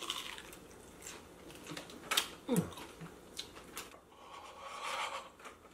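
Close-up eating sounds: faint chewing and wet mouth clicks on a fried ground-beef and mozzarella stick. A short hum falls in pitch about two and a half seconds in, and a breathy exhale comes near the end.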